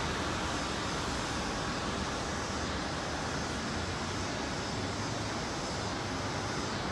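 Steady, even rushing noise of distant jet aircraft engines at the airport.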